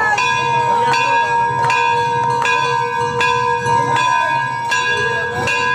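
Large hanging brass temple bell rung by hand over and over, about one strike every three-quarters of a second, each stroke ringing on into the next.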